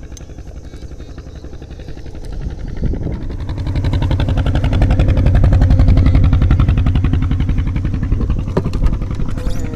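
Small engine running with a steady rapid beat, speeding up and getting louder about three seconds in, then holding there before easing slightly near the end.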